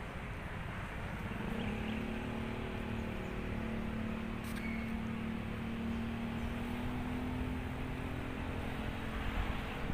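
Vehicle engine running with a steady hum over a low rumble; the hum comes in about a second and a half in and holds, rising very slightly in pitch.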